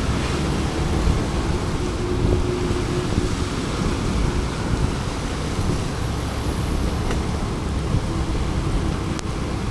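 Steady road and traffic noise from a moving scooter in city traffic, with a low engine hum.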